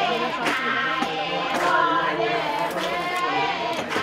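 A group of voices chanting or singing together, with sharp hits now and then.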